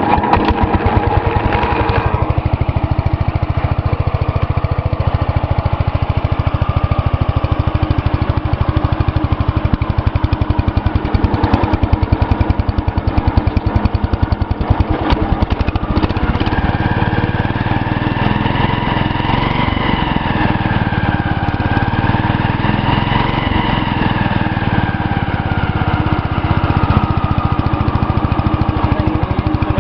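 Cub Cadet 126 garden tractor's single-cylinder Kohler engine running steadily on a little choke after sitting for about 23 years, having just been started with its starter-generator. From about the middle on, a whine rises and falls in pitch over the engine's beat.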